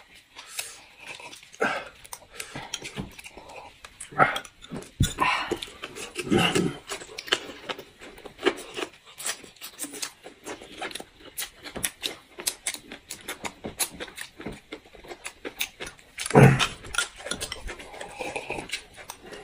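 Close-miked eating sounds: chewing, slurping and sucking at food, with light clicks and taps of tableware scattered throughout and a few louder mouthy bursts.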